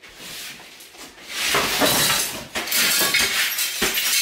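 Broom sweeping shards of broken ceramic plates across a wooden floor, the pieces scraping and clinking together as they are pushed toward a dustpan, louder from about a second and a half in.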